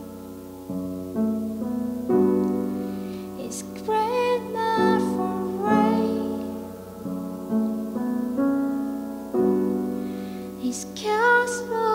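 Improvised live music: keyboard chords struck every second or so and left to ring and fade, with a woman's voice singing gliding notes over them twice.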